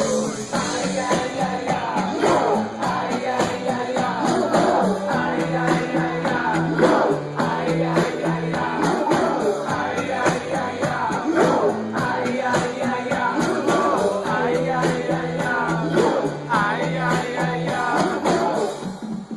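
A live band playing a song with a steady beat, with lead vocals over it, recorded on a phone's microphone from within the concert crowd.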